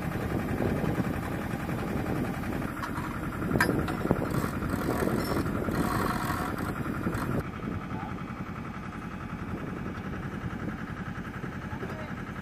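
Steady engine-like machinery rumble, with two sharp knocks about three and a half and four seconds in; the sound becomes quieter and duller at about seven and a half seconds.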